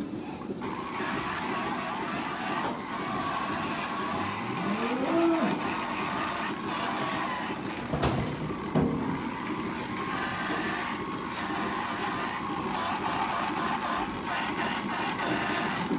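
Electric teat-cleaning brush motor running steadily as it scrubs and washes a cow's teats before milking. A cow moos once, about four seconds in, in a call that rises in pitch, and there are two short metal knocks around eight seconds in.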